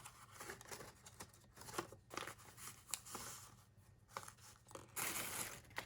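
Paper craft packaging being handled: soft rustling and crinkling with small clicks and taps, then a longer, louder rustle near the end.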